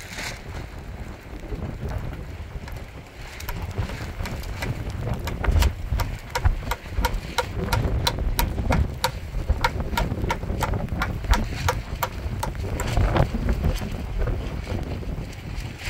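Wind buffeting the microphone in a low rumble, with a run of sharp clicks or taps, a few a second and unevenly spaced, starting about three seconds in and stopping just before the end.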